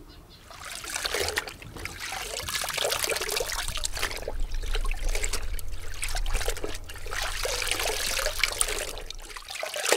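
Water trickling and pouring, with a low rumble underneath.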